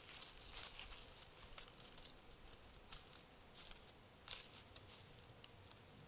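Faint crackling rustle of dry leaf litter under a roe deer's hooves as it walks away, fading over the first couple of seconds, then a few soft scattered crackles.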